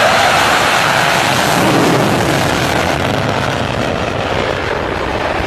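Jet aircraft engine noise: a loud, steady rushing sound that eases slightly in the second half.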